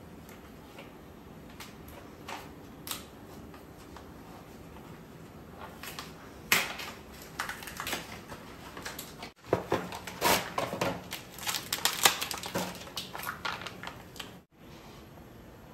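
Cardboard box and plastic food packaging being opened and handled: a few light clicks at first, then dense rustling, tearing and crinkling from about six seconds in until near the end.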